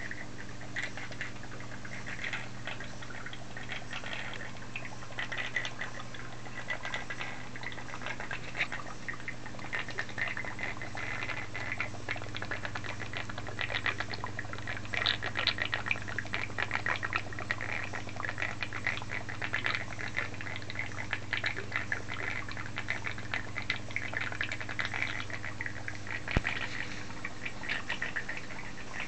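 Coolant liquid trickling and spattering as it circulates continuously over a CNC machine table and drains back to the reservoir, over a steady hum from the garden pond fountain pump driving it. One sharp click near the end.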